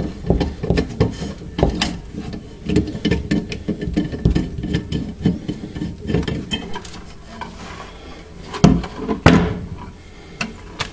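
A screwdriver works the small screws and fittings of an old gas-furnace pilot assembly, making a run of light metal clicks and scraping rubs. Two louder knocks come about three-quarters of the way through as metal parts are handled.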